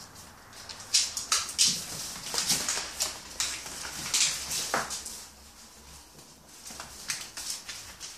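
A bullmastiff puppy and a Staffordshire bull terrier–schnauzer cross play-fighting: irregular scuffling and sharp clicks of claws scrabbling on a wooden floor, with the odd short dog sound. The scuffling is busiest about a second in and again around four to five seconds, and eases off shortly after.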